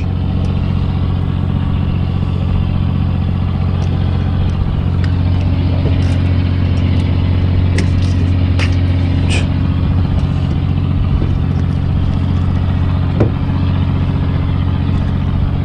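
A fishing boat's engine running steadily, an even low hum. A few light clicks come through between about six and ten seconds in.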